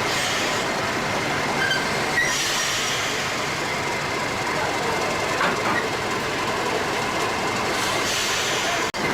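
A train moving through a station with a steady rumble of wheels on rails, and a few brief high wheel squeals about two seconds in.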